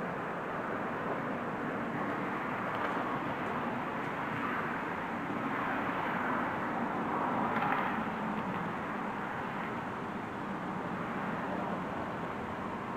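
Steady rushing outdoor background noise with no clear tones, swelling a little about seven to eight seconds in, then easing.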